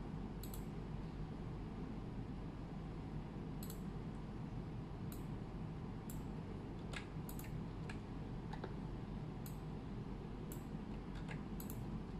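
Scattered, irregular clicks of a computer mouse and keyboard, about a dozen, some in quick pairs, over a steady low background hum.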